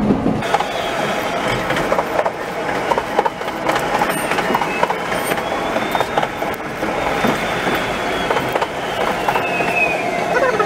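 Toden Arakawa Line tram running on its rails, heard from the cab and fast-forwarded about three times: a quick patter of wheel clicks and knocks over the running noise. In the second half a thin wheel squeal rises and then falls in pitch as the tram takes a curve.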